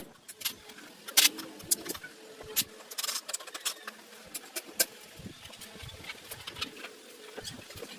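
Scattered clicks, taps and short scrapes of hand tools at work on a motorcycle, with a faint steady hum underneath.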